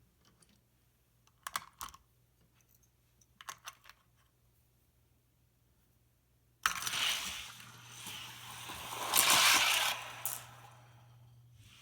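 Two short bursts of plastic clicking as die-cast Hot Wheels cars are set on the track. Then, about six and a half seconds in, a sudden rattling roll of the cars' wheels down plastic drag-race track, loudest about nine seconds in before fading.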